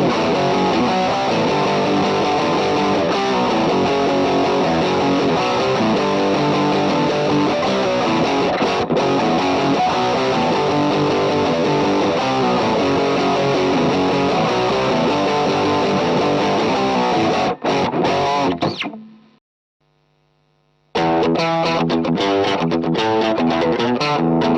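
Electric guitar played through a 1985 black-label Boss OD-2 Turbo Overdrive pedal, modded by MC-FX, giving a distorted overdrive tone. The playing goes on steadily, stops about 19 seconds in, and starts again about two seconds later.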